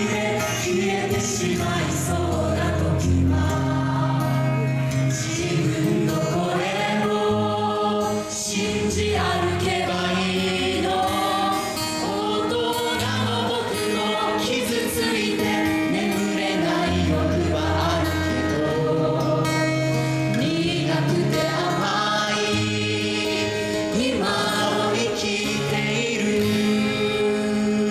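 Live music: a group of voices singing a slow song together in choir style over instrumental accompaniment.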